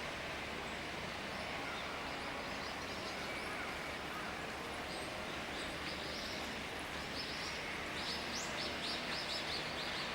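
Common kingfisher calling with a fish held in its bill: short, high, thin notes in quick runs, sparse at first and coming thick and fast for a few seconds near the end, over a steady background hiss.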